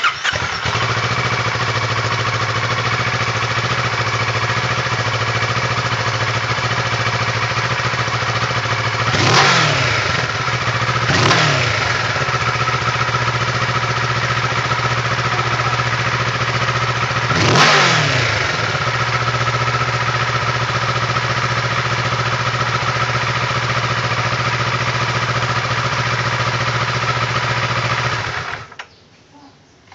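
Kawasaki ER-6n's 649 cc parallel-twin engine heard through its stock exhaust. It starts, idles steadily, and is blipped three times with short revs, two close together about nine and eleven seconds in and a third a few seconds later. It shuts off near the end.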